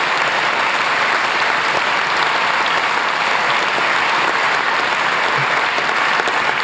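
Steady applause from a conference hall audience: dense, even clapping at a constant level.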